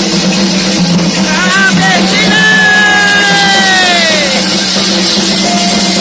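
Loud ceremonial Candomblé music with drums and voices. From about a second and a half in, a voice cries out: a few short rising cries, then one long call that falls in pitch.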